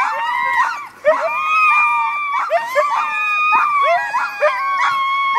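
A hitched team of sled dogs howling and yelping all together, in many overlapping high calls: some long and held, others short and rising. It is the excited clamour of a team waiting at the start line to be let go.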